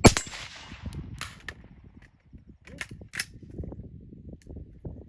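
A single shot from a Gemtech Integra integrally suppressed rifle, a sharp crack that fades over about a second, followed by several sharp metallic clicks and clacks as the rifle is handled, with wind rumble underneath.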